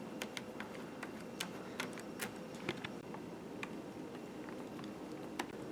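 Small screwdriver clicking and ticking irregularly against the screws of a laptop's bottom panel as they are taken out.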